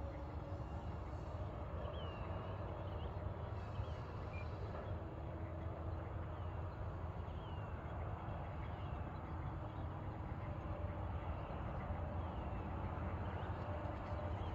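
Low wind rumble on the microphone, with a faint steady whine from the E-flite Draco's electric motor throttled back on its landing approach. A bird gives short descending chirps again and again.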